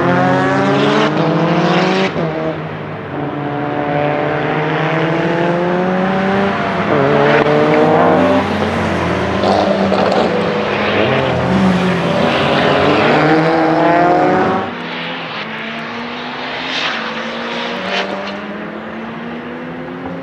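Lancia Delta HF Integrale EVO Proto's turbocharged 2.0-litre four-cylinder under hard acceleration, its revs climbing again and again and breaking off at quick sequential-gearbox upshifts, with a few sharp cracks. It turns quieter about three-quarters of the way through as the car is farther off.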